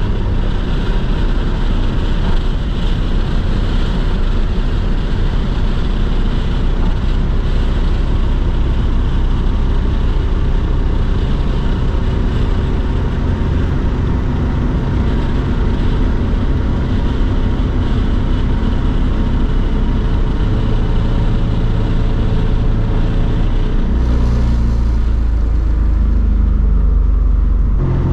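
In-cabin sound of a 2003 Audi S6 Avant's 4.2-litre V8 at high Autobahn speed, around 220 km/h, with steady wind and tyre noise. Near the end the car slows, the wind hiss falls away and a low engine drone grows louder.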